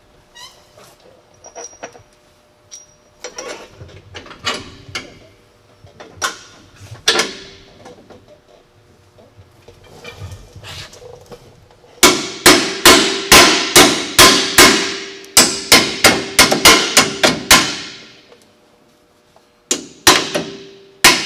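Hammer blows on the steel front suspension parts of a Ford F-150, each strike ringing metallically. Scattered knocks in the first half, then a fast run of strikes, about three a second, for some six seconds past the middle, and a few more near the end.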